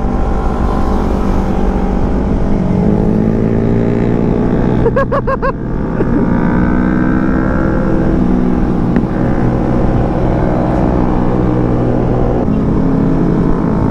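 Yamaha R25 parallel-twin engine and exhaust under way. Its pitch climbs and drops several times as the bike accelerates and changes gear, over a low rumble of wind and road.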